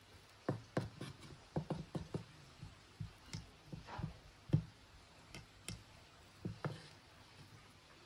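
Wooden spatula knocking and scraping against the side of a pot while cooked rice is turned and mixed. The knocks come irregularly, the loudest about four and a half seconds in, and they stop near the end.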